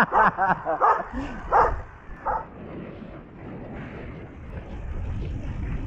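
Dogs barking, a quick run of short barks over the first two seconds or so, then stopping and leaving a low steady rumble.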